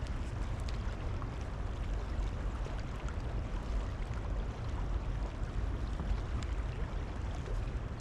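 Steady rushing noise of a high, flooded river's current, with a deep low rumble underneath.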